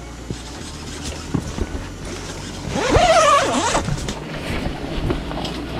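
A spinning reel being cranked as a small lake trout is brought up through the ice, with a short, bending, voice-like cry about three seconds in.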